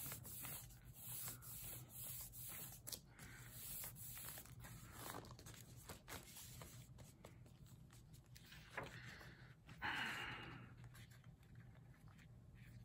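Faint rustling and sliding of a paper record inner sleeve and its thin liner being handled and smoothed by hand, with small scattered clicks and a louder rustle about ten seconds in.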